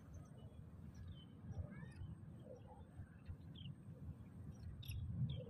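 Faint scattered bird chirps over a low, gusting rumble of wind on the microphone.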